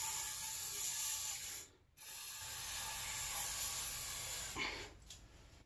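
Two long hissing sprays of pressurized air or aerosol, each about two and a half seconds, with a short break between them.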